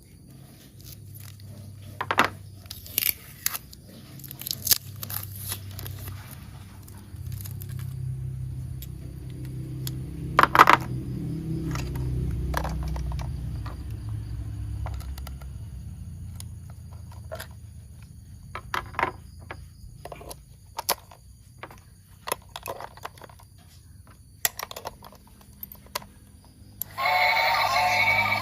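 Plastic toy train parts clicking, tapping and rattling as they are handled and fitted together, with a low hum in the middle stretch. Music starts near the end.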